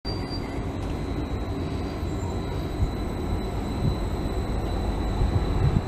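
GYSEV electric multiple unit passenger train running along the track: a steady rumble of wheels on rails with a thin, high steady whine, growing slightly louder toward the end.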